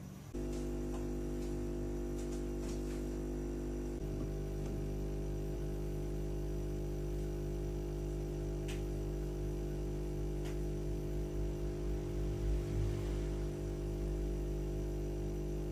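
Steady electrical mains hum, a low buzz with many even overtones, that switches on abruptly at the start and holds level throughout.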